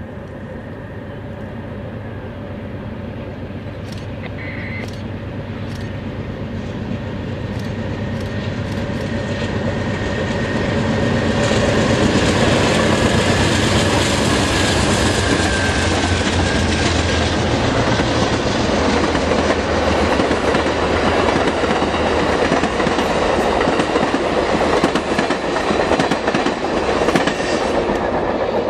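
Amtrak California Zephyr passenger train approaching and passing on an upgrade. Its diesel locomotives work under load, growing louder for about twelve seconds, then the Superliner cars roll by with steady wheel clatter over the rail joints and a faint high wheel squeal on the curve.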